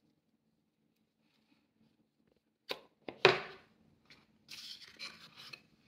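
A small hinged coin case being shut: after a near-silent stretch, two light clicks and then one loud clack of the lid closing about three seconds in. It is followed by about a second of scraping and rustling as the boxes are handled on a wooden tabletop.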